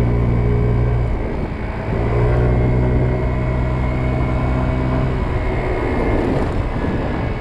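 Kymco Agility 50 scooter's small 50cc engine running under way with a steady drone. The drone dips briefly about a second in and comes back, then near five seconds turns into a rougher, less even noise.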